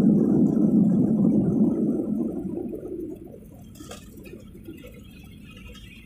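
Jet airliner's landing-roll noise heard inside the cabin: a loud low roar from the engines and the runway roll, which fades away over about a second from two seconds in as the aircraft slows, leaving a faint rumble.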